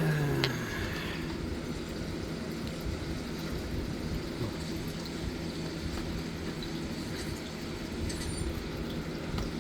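Steady low machine hum, with a single sharp click about half a second in.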